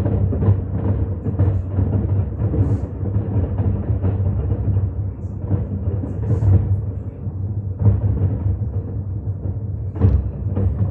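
Fireworks bursting in rapid succession, a dense rumble of overlapping booms with heavier detonations standing out several times, the strongest about ten seconds in.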